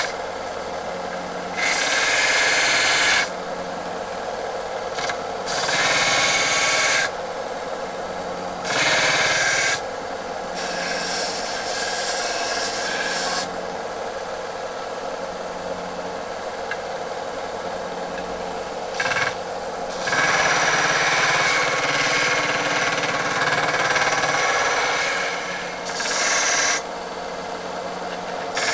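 Bench belt sander running steadily while a rough-cut metal bayonet blade is pressed against the belt in repeated passes to shape it. Each pass is a loud grinding hiss lasting one to a few seconds, with the machine's hum between passes.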